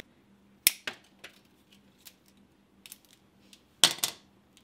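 Sharp snips and clicks of pliers working the wire that holds up a removed brake caliper, with light metal clinks as the caliper is handled. A louder clack comes about four seconds in.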